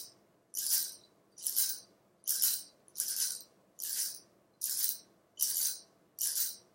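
A hand rattle or shaker shaken in a steady rhythm, a little more than one shake a second, over a faint held low drone.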